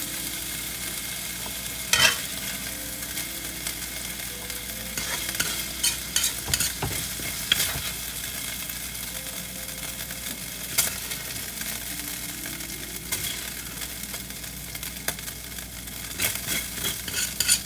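Hot oil sizzling steadily in a metal wok while a spatula scoops stir-fried chicken pieces out. Now and then the spatula gives a sharp scrape or tap against the pan.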